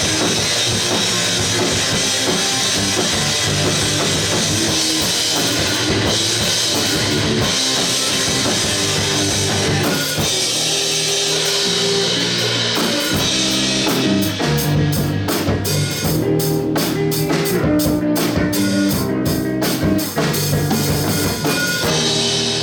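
Rock band playing an instrumental passage with drum kit, bass and guitar. About halfway through it turns to choppy, stop-start accented hits with cymbal crashes.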